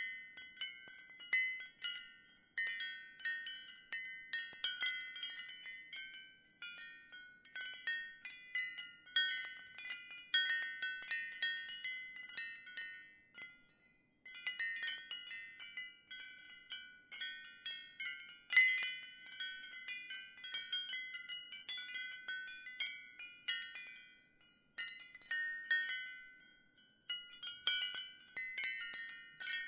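Wind chimes ringing in irregular clusters of strikes, several high notes overlapping and ringing on, with a couple of brief lulls in between.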